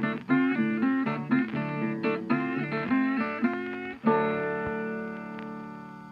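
Guitar music: a run of plucked notes, then a final chord about four seconds in that rings out and fades away.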